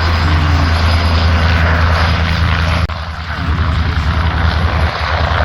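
Aircraft engine running, loud and steady with a deep hum; the sound drops and changes character suddenly about three seconds in.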